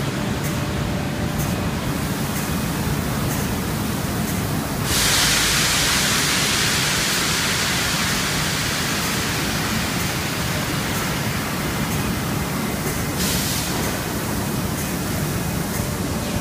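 Steady machinery noise of a foundry core-making line, with a low hum. About five seconds in a loud hiss starts suddenly; it fades slowly and cuts off about eight seconds later.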